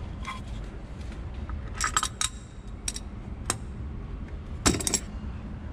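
Adjustable wrench clinking against the clutch slave cylinder as it is twisted loose from the transmission: several sharp metallic clinks, the loudest near the end.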